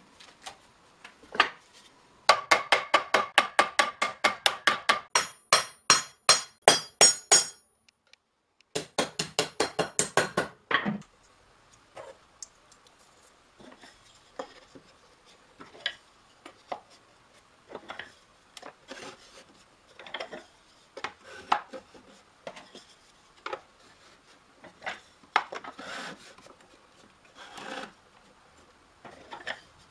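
Hammer blows on a thin steel band, in two quick runs of about four to five strikes a second. The first run rings high and metallic. Lighter, scattered taps and knocks follow.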